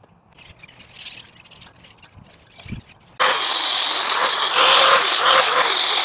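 Faint clicks and handling at first, then about three seconds in a corded power tool starts suddenly and runs loud and steady with a whine, cutting an opening through the wire mesh of a cage.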